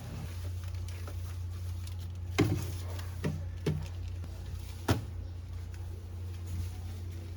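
Four sharp knocks and bumps of things being handled and set down while cabinets are rearranged, over a steady low hum. The first and last knocks are the loudest.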